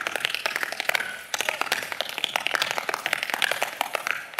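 Tap shoes striking a stage floor in fast, dense tap-dance footwork, with a brief lull about a second in before the rapid taps resume.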